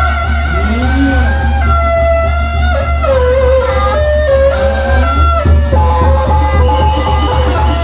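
Live Sundanese benjang procession music, played loud: a melody line that steps and slides between held notes over a heavy steady bass, with drumming coming in more densely about two-thirds of the way through.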